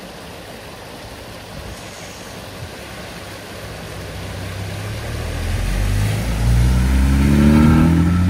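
Steady rush of water, then from about halfway a car engine growing louder and rising in pitch as it accelerates.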